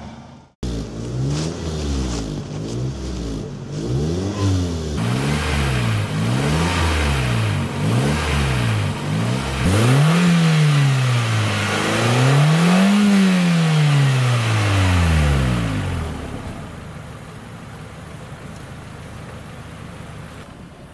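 Small hatchback's petrol engine being revved: quick throttle blips about once a second, then two long slow revs that climb and fall back, each lasting a few seconds. Near the end it drops to a quieter steady sound.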